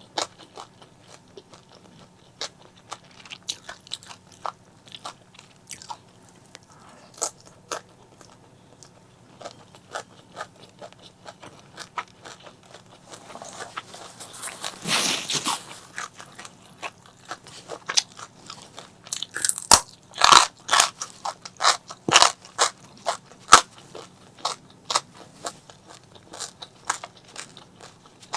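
Close-miked eating: a person biting and chewing crunchy food, with many short sharp crunches. There is a longer noisy burst about halfway through, and the crunches come loudest and thickest a few seconds after it.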